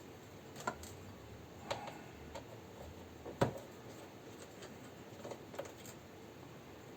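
Small star screwdriver working screws out of a graphics card: a few scattered light clicks and ticks, the loudest about three and a half seconds in.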